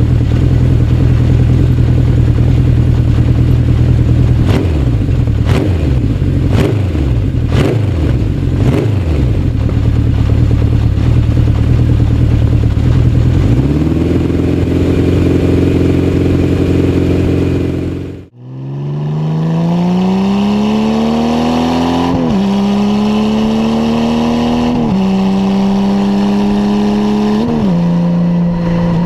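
Motorcycle engine idling and revved briefly about five times, then held at higher revs. After a sudden cut, it accelerates through the gears: the pitch rises and drops back at three upshifts.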